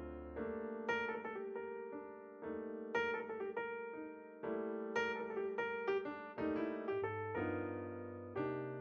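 Background piano music: notes struck and left to die away, with a stronger chord about every two seconds.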